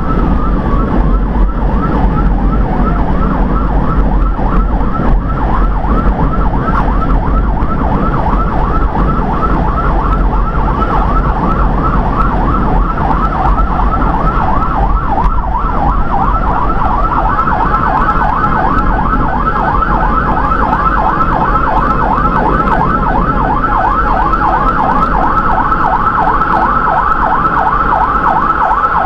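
Electronic emergency siren heard from inside the cab of the responding vehicle: a slow wail falls away in the first seconds and gives way to a rapid yelp, several swoops a second, over steady engine and road rumble. A steady higher tone joins the yelp a little past halfway.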